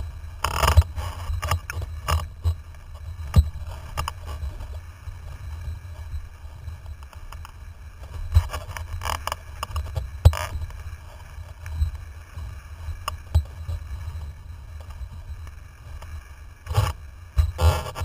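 Wind buffeting the microphone of a camera mounted on a windsurfing rig under way, a steady low rumble. Sharp knocks and splashes come through now and then, several of them close together near the end, as the board and rig hit the chop.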